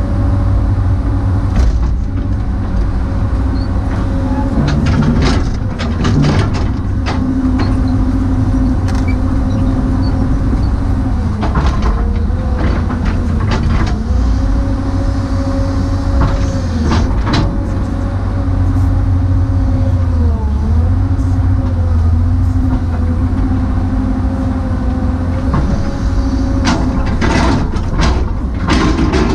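Hydraulic excavator's diesel engine and hydraulic pump running under working load, heard from inside the cab; the engine's steady drone sags in pitch for a moment several times as the hydraulics take load. Scattered clanks and knocks of the bucket and machine come through, several in a cluster near the end.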